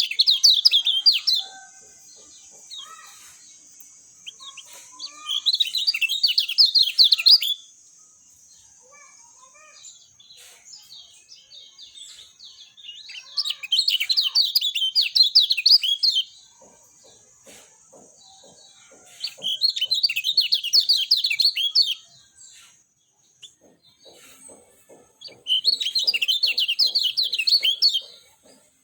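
Kecial kuning (a white-eye) singing in five bursts of rapid, high twittering, each about two seconds long and spaced about six seconds apart, with scattered soft chips between them over a faint steady high hiss.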